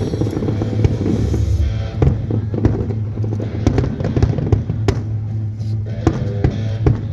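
Fireworks bursting in sharp, irregular bangs, several a second at times, over music with a steady low drone.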